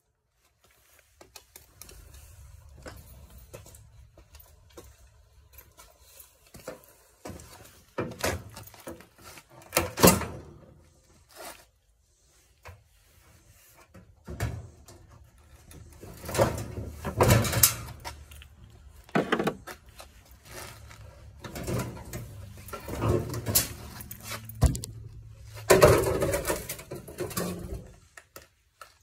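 Irregular knocks, clicks and rattles of tools and metal parts being handled while a washing machine is taken apart to remove its motor, over a low rumble.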